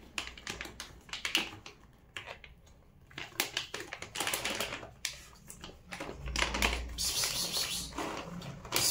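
Bag of dry cat food being torn open and handled: a run of sharp crackling clicks from the stiff bag, then louder, denser crinkling and rustling over the last three seconds as the bag is pulled open.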